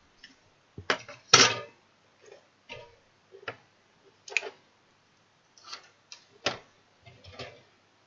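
Irregular knocks and clicks of a plastic computer cooling fan being handled and set down on a wooden desk, about a dozen in all, the loudest a little over a second in.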